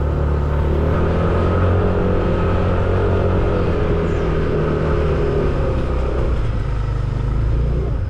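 Motorcycle engine running steadily under heavy load, pulling up a very steep climb.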